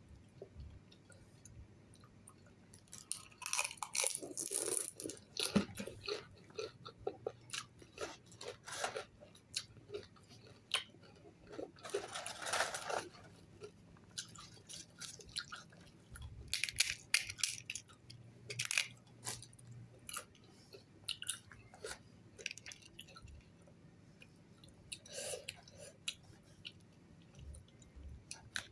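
Someone crunching and chewing crisp fried puri shells, in uneven bursts of crackling and munching with short pauses between.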